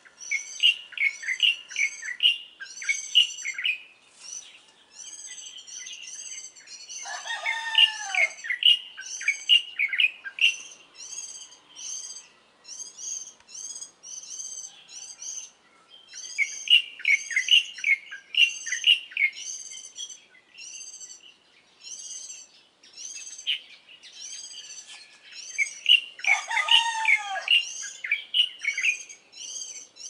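Morning chorus of small songbirds: high chirps repeated rapidly and without pause. A rooster crows twice, about 7 seconds in and again about 26 seconds in.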